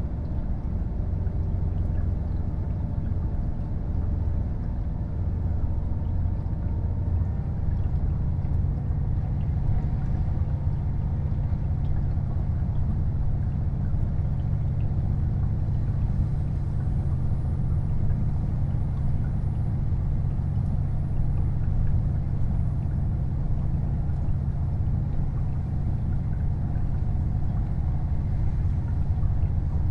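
Running sound of a KiHa 48 diesel railcar under way: a steady low diesel engine drone with wheel and track rumble. The engine note grows stronger about eight seconds in.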